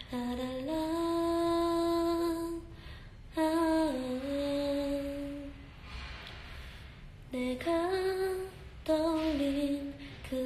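A young woman singing a song unaccompanied, holding long drawn-out notes in phrases with short breaks between them, some of them hummed rather than worded. She has a cold as she sings.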